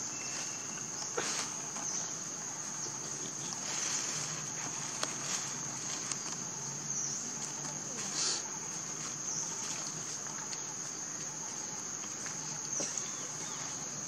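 Steady high-pitched insect drone, with a few brief clicks and rustles now and then.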